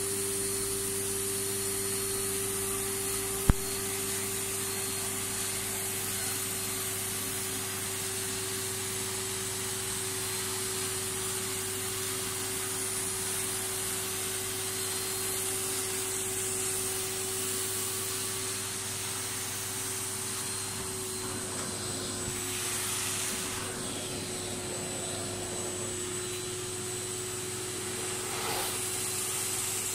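Carpet extraction machine running as the spray-and-suction wand is drawn across the carpet: a steady vacuum-motor whine over rushing air and water hiss, with a single sharp click about three and a half seconds in and a few swells of hiss near the end.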